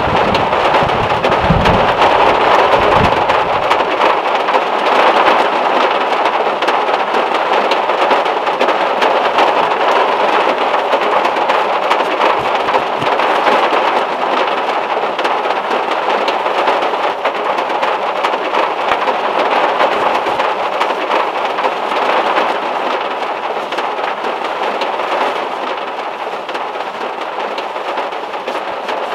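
Heavy rain falling on the metal roof of a VW Beetle, heard from inside the car as a dense, steady patter. A low thunder rumble dies away in the first few seconds.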